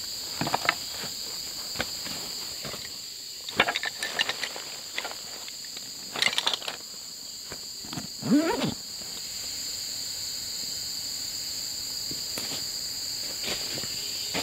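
Steady high buzzing of forest insects. Over it come a few short bursts of crackling and knocking, the last, about eight seconds in, with a brief sound that bends in pitch.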